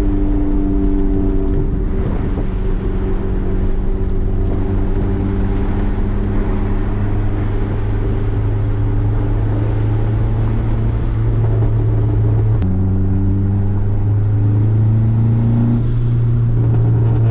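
Dodge Neon SRT-4's turbocharged 2.4-litre four-cylinder engine running steadily as the car drives. About two-thirds of the way through, the engine note changes abruptly, as at a gear change, then rises steadily as the car accelerates.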